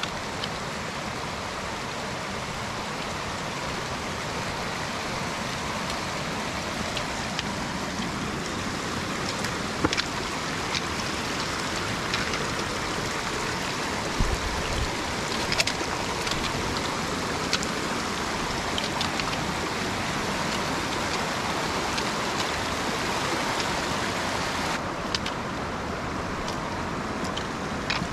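Steady rush of a mountain creek's flowing water, with scattered sharp clicks over it.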